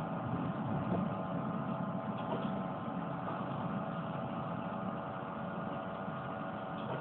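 Air compressor of a Meitetsu 6500 series electric train running, heard inside the passenger car: a steady hum of several fixed tones over a low rumble.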